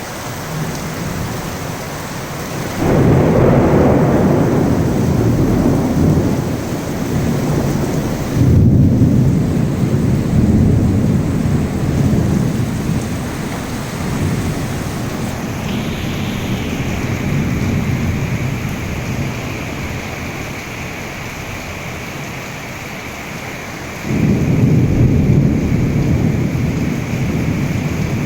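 Heavy monsoon rain falling steadily, with loud low rumbles of thunder rolling in about three seconds in, again about eight seconds in, and near the end.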